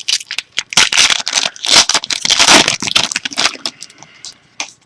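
Foil trading-card pack being torn open and crinkled, a loud crackling rustle that dies down to a few light clicks and rustles about three and a half seconds in.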